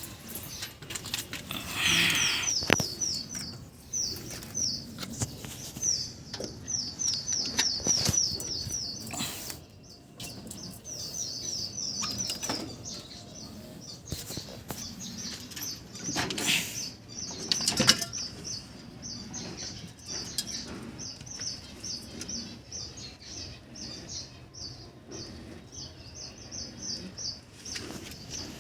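Small finches calling in quick runs of short, high chirps, several a second, with bouts of wing flapping and knocks about 2 s, 9 s and 17 s in.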